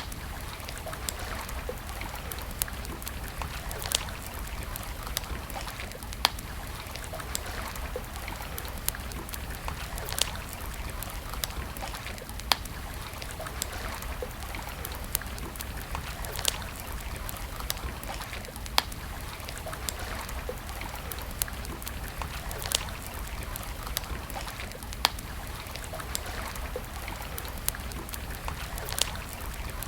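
Wood campfire crackling: sharp pops and snaps at irregular intervals, about one a second, over a steady hiss.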